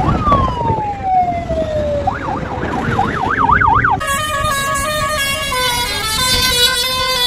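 A siren-style wail that falls in pitch over about two seconds, then switches to a fast warble. About four seconds in it gives way to a bus's musical horn playing a stepped tune over the engine noise.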